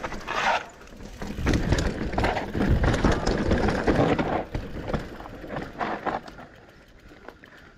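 Mountain bike riding down a dirt trail: tyres rolling and skidding with frequent knocks and rattles from the bike. The noise is heaviest in the middle and eases off near the end.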